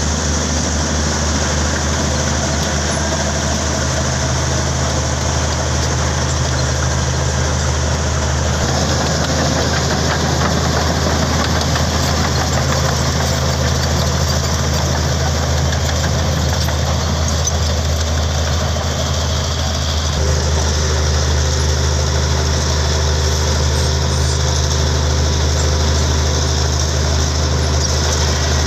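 Komatsu D65P bulldozer's diesel engine running with a steady low drone, its note shifting about 8 seconds in and again about 20 seconds in.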